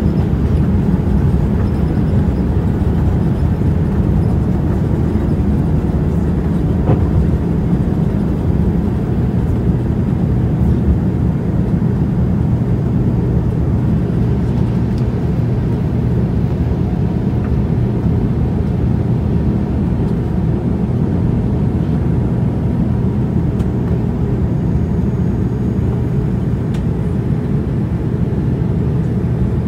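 Steady low rumble inside the cabin of a Boeing 787-9 airliner around takeoff, with a low steady hum joining about nine seconds in.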